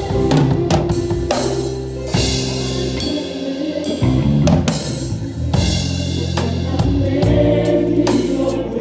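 Live band music led by a drum kit played with sticks, with snare and bass drum hits over held bass notes and singing.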